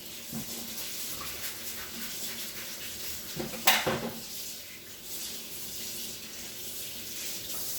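Dishes and a steamer lid being handled in a kitchen: a few light knocks and one sharp clatter a little past halfway, over a steady hiss.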